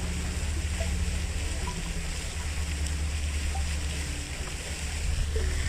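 Steady rush of flowing water with a low rumble underneath, and scattered brief bird chirps.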